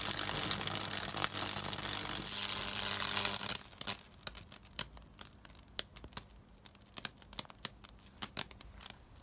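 High-voltage arcing from a microwave oven transformer burning a fractal pattern through wet wood, with the burn paths joined between the electrodes: a loud hissing, sizzling crackle over a low electrical hum. It cuts off suddenly about three and a half seconds in, leaving faint scattered crackles and ticks.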